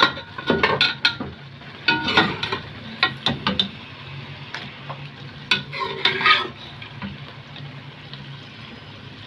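Metal spoon scraping and knocking against a pressure cooker pot and a kadhai as pressure-cooked beef is scooped into frying tomato masala, over a steady sizzle of hot oil. The scrapes come in clusters and stop about two-thirds of the way through, leaving only the sizzle.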